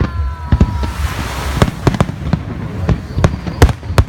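Fireworks going off: a fast, irregular series of sharp bangs, with a crackling hiss swelling about a second in.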